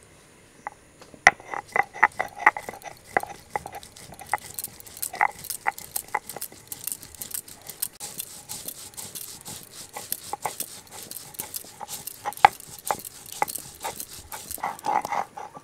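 Poppy seeds, melon seeds and cashews being ground by hand into a spice paste: irregular knocks and clicks with a gritty scraping that runs through the middle of the grinding.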